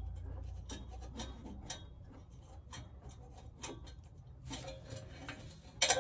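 Light, irregular metallic clicks and ticks from fingers turning a small nut and locking nut on the clamp bolt of an exhaust whistle fitted to a van's tailpipe, with a louder flurry of clicks near the end.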